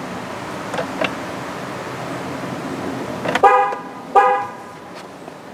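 GM truck's horn chirping twice, two short toots under a second apart, signalling that the tire pressure monitor relearn mode has become active.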